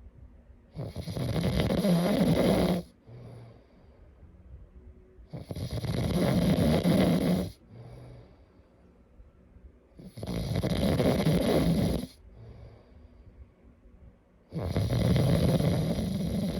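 A sleeping person snoring: four loud snores about two seconds each, coming roughly every four and a half seconds, each followed by a short, quieter breath out.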